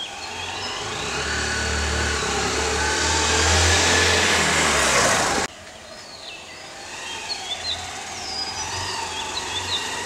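Motorcycle engine running and growing steadily louder, cut off abruptly about five and a half seconds in. After the cut a quieter engine rumble continues, with birds chirping.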